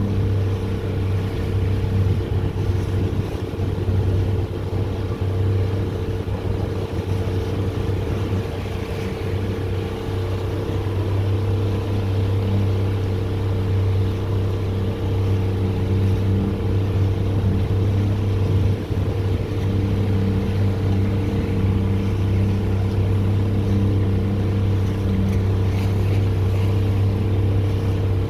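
Motorboat engine running steadily at cruising speed: a constant low hum that holds one pitch, with no throttle changes.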